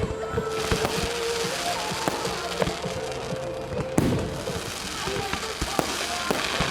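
Fireworks going off in a dense run of bangs and crackles over a continuous crackling hiss, with one louder bang about four seconds in.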